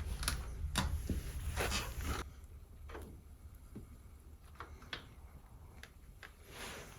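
Scattered light clicks and knocks of tools and metal parts being handled, with a low hum under the first two seconds.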